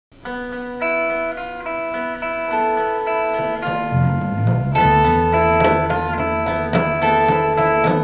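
Instrumental music: a melody of held notes opens, a bass line comes in about four seconds in, and a beat joins about a second later.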